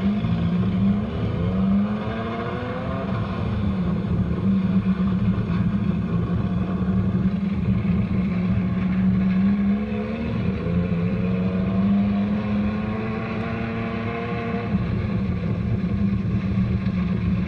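Dune buggy engine running hard off-road, its pitch climbing as the revs rise, about a second in and again around ten seconds in, then dropping back each time.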